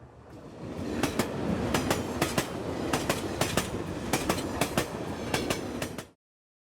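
Train passing, its wheels clattering over rail joints in a steady clickety-clack. It builds up over the first second and cuts off suddenly about six seconds in.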